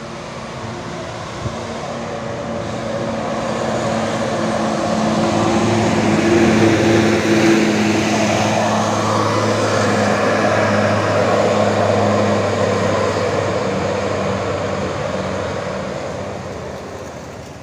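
Large tour bus's engine running as the bus drives up past, growing louder to a peak about halfway through and then fading away.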